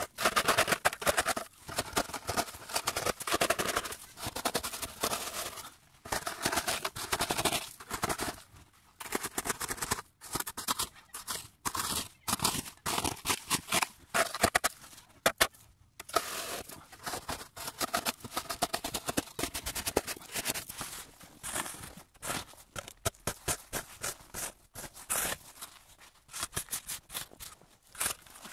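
Rapid crunching and scraping in packed snow, in bursts of a few seconds with short pauses between them.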